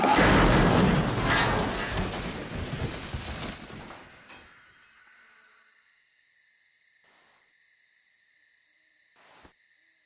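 A loud crash that fades away over about four seconds, then faint steady cricket chirping.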